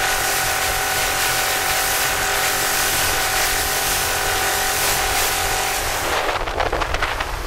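Outboard motor of an inflatable dinghy running at speed with a steady whine, over rushing wake spray and wind. About six seconds in the engine sound stops, leaving splashing water and wind buffeting the microphone.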